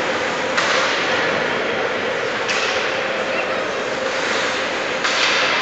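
Ice hockey play on a rink: a steady arena din broken by three sudden sharp scrapes or hits from skates, sticks and puck on the ice, a little after the start, about halfway and near the end, each fading in the hall's echo.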